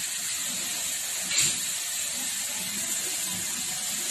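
Steady hiss of water running from a bathroom tap, with one brief louder burst of noise about a second and a half in.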